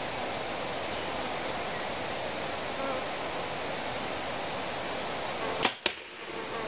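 Steady hiss of outdoor ambience, then near the end a bow shot: two sharp snaps a fraction of a second apart.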